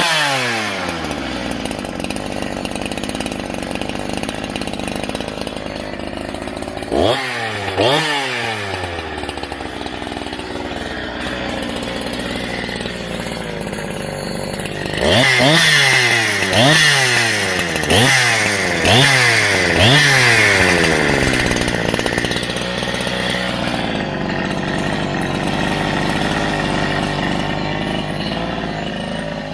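Neotec NH-843 65cc two-stroke chainsaw idling and being revved with short throttle blips that each drop quickly back to idle: two about seven seconds in, then a quick run of about six in the middle, before it settles back to a steady idle.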